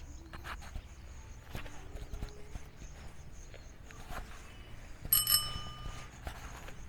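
Faint footsteps on the ground, with a short bell-like ring about five seconds in.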